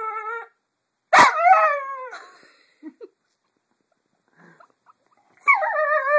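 Pet dog "talking": drawn-out howling vocalizations that fall in pitch, a pause of about three seconds, then a long wavering howl starting near the end, the dog answering its owner's repeated "I love you" with speech-like sounds.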